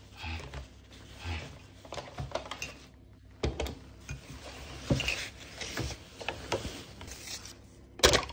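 Groceries being unpacked from a cloth tote bag: fabric rustling, with a string of clicks and knocks as cartons and tubs are handled and set down, the loudest knock near the end. A few soft, evenly spaced thuds come first.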